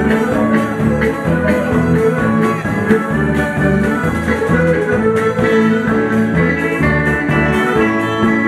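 Live old-time Ukrainian dance band playing a lively fiddle tune, with electric guitar and accordion backing over a steady beat.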